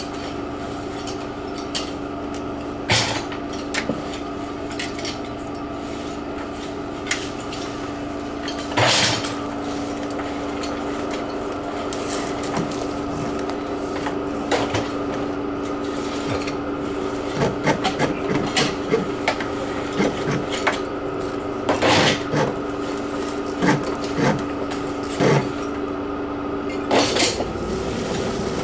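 Steady machine hum with a held tone, over which an insulation blowing hose knocks and scrapes against wooden siding as it is worked into holes drilled in the wall. The knocks come in a cluster in the second half, and the tone drops out near the end.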